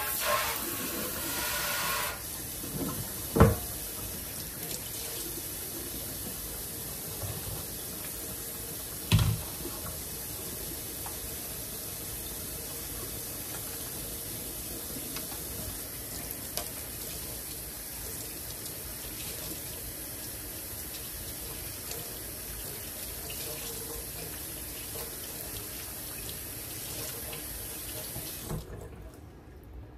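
Kitchen tap running steadily into a stainless steel sink while hands are rinsed under the stream, shut off near the end. Two sharp knocks, a few seconds in and again about nine seconds in, are the loudest sounds.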